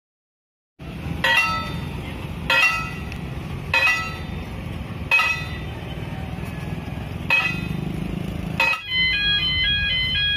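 Level-crossing bell struck six times at uneven intervals, each strike ringing briefly, over a steady low rumble. Near the end an electronic crossing alarm starts, a repeating pattern of stepped high tones.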